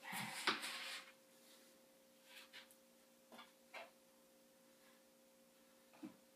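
Wooden closet cabinet being handled and shifted into place: a scrape and a knock in the first second, then a few light taps, over a steady faint hum.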